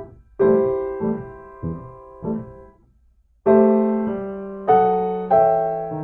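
Piano music. A held chord rings with softer notes struck under it, then a short pause, then louder chords each left to fade.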